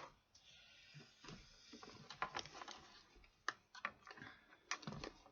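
Faint scattered clicks and light rustling of hands handling the padding and plastic parts of a full-face motorcycle helmet's liner.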